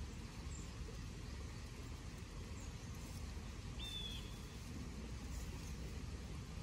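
Steady low outdoor rumble, with faint high bird chirps a few times and one short whistled note about four seconds in.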